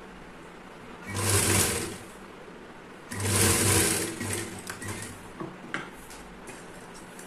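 Electric sewing machine stitching a folded piping strip along a fabric edge, running in two bursts of about a second each, about a second in and three seconds in, then a few brief stop-start stitches and clicks as the fabric is turned.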